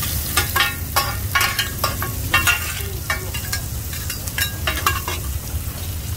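Hoi tod, a mussel-and-batter pancake, sizzling as it fries in oil, with irregular clinks and scrapes of a metal cooking utensil, thicker in the first few seconds.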